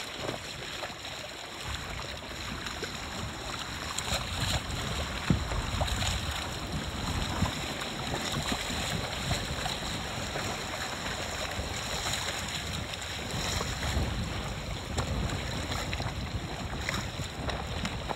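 Wind buffeting the microphone and water rushing and splashing along a sailboat's hull under way, in uneven gusts, with a couple of brief sharp knocks.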